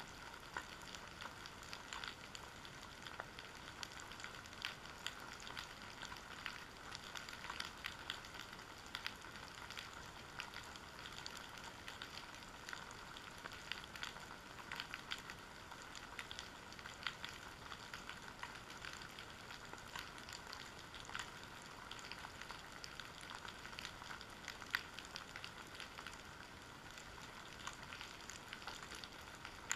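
Underwater ambience on a rocky, kelp-covered seabed: a steady, dense crackling of many small clicks and pops, with a few louder clicks scattered through it, the loudest about 25 seconds in.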